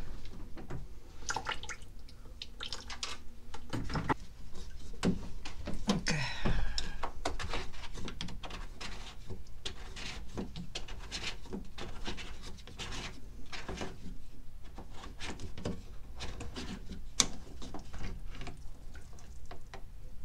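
Water draining from a washing machine's small emergency drain hose at the pump filter, trickling and dripping, with irregular small clicks of the plastic hose, flap and filter cap being handled.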